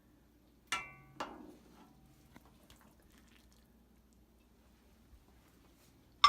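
Kitchen utensil clinking against dishware twice, the first strike ringing briefly. A louder clink comes near the end.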